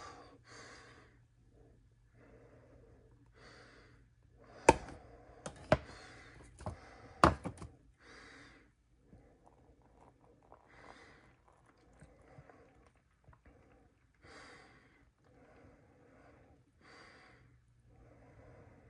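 Four sharp knocks within about three seconds near the middle, the last the loudest, from objects handled on a hard surface, between stretches of faint room sound.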